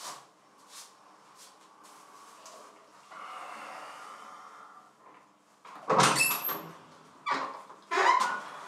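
A door being opened in a small room: loud clunks and rattling with a high squeak, starting about six seconds in and coming again near the end.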